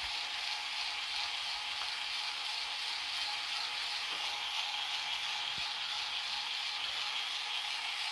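Bauer 4-volt lithium-ion cordless screwdriver running steadily with its trigger zip-tied on. Its small motor and gearbox whir as it turns a drill bit slowly in a wooden 2x4.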